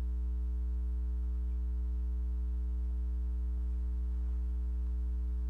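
Steady low electrical hum, a mains buzz with several fainter, higher steady tones stacked above it and nothing else.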